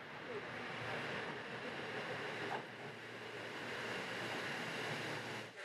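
JR Central KiHa 75 diesel railcar on the Rapid Mie pulling into a station platform: a steady rumble of the engine and the wheels on the rails.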